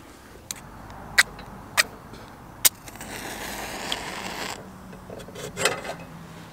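A wooden match being struck: three sharp scratches, the third catching with a hiss of flame that lasts about a second and a half, then another brief scratch and flare near the end as the match is brought to the lantern's wick.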